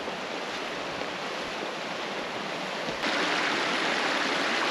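Steady rushing of running water, like a mountain stream, which turns abruptly louder and brighter about three seconds in.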